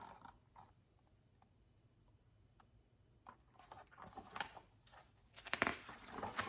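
Faint rustling and soft clicks of a picture book's paper page being handled and turned. It begins about three seconds in, after a near-silent start, and is densest near the end.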